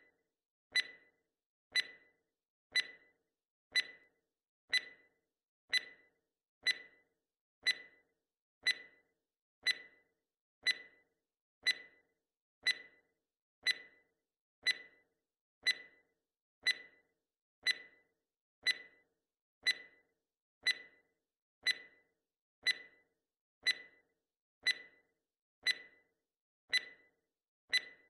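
Countdown timer ticking, one sharp tick every second at an even pace.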